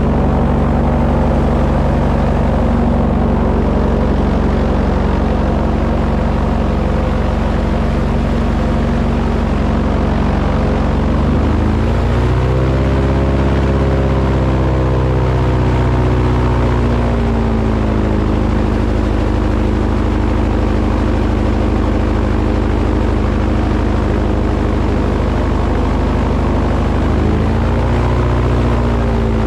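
A motor running steadily. It revs up about twelve seconds in, holds for a few seconds, settles back, then revs up again near the end.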